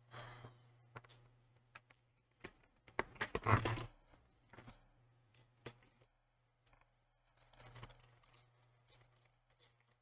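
Faint clicks and taps of a small screwdriver and fingers working at the M.2 SSD's retaining screw inside an open laptop, with a brief rustle about three and a half seconds in, over a low steady hum.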